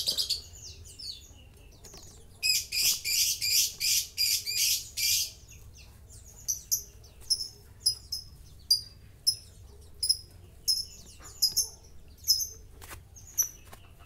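Lovebird calling: a run of harsh, rapid chattering from about two and a half to five seconds in, then a string of short, sharp, high chirps at about two a second.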